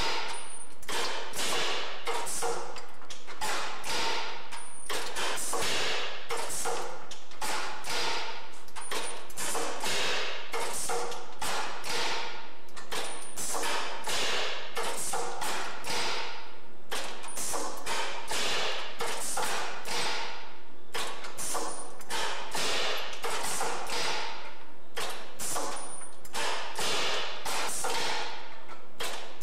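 Cylinder-driven test rig cycling, its arm and steel frame giving a steady run of metallic knocks, about one or two a second, with a short high ping about every four seconds.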